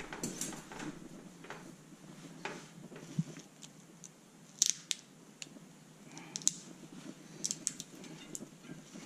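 Scissors cutting plastic rim tape: a scattering of short, sharp snips and clicks.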